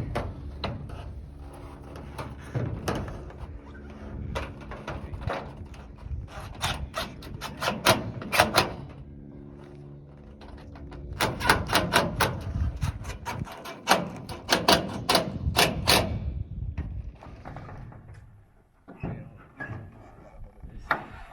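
Rapid runs of sharp clicks and knocks, several a second, over a steady engine-like hum: hand-tool and hardware noise from mounting work.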